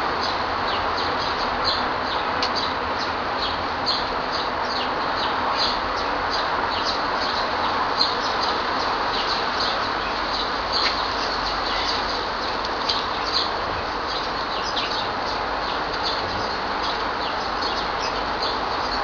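Small birds chirping, many short high calls a second, over a steady background hiss.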